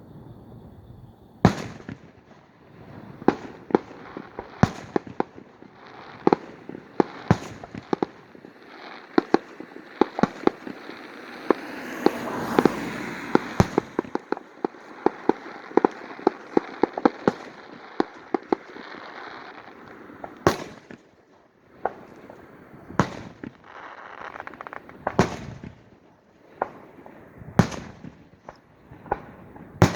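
Fireworks going off: a steady run of sharp bangs, some in quick clusters, over crackling that builds to a dense peak about halfway through before the bangs thin out to single reports.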